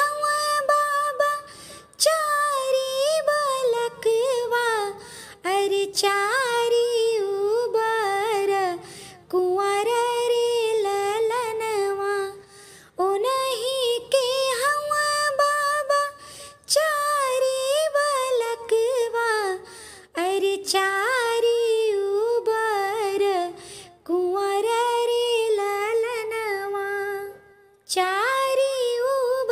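A woman singing an Awadhi vivah geet (traditional wedding folk song) solo and unaccompanied, in melodic phrases of a few seconds each with short breaths of near silence between them.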